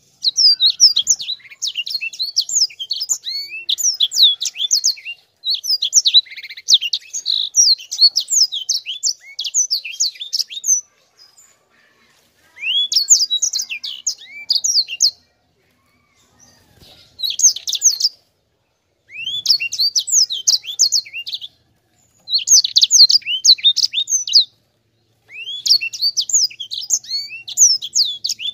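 A caged sanger finch singing a dense, rolling song: phrases of fast, high chirps and trills, each lasting a second to several seconds, broken by short pauses.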